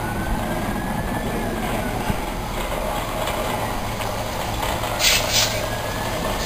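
A Southern electric multiple-unit train approaching along the platform, with the steady rumble of wheels on the rails and a faint whine that rises and then falls, twice. Two short high-pitched hissing bursts come about five seconds in.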